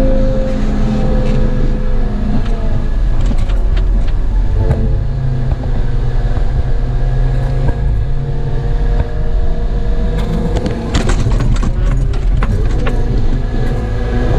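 Caterpillar 914G wheel loader's diesel engine running as the machine drives, heard from the cab. The engine note shifts a few times, and a run of rattles and knocks comes about eleven to thirteen seconds in.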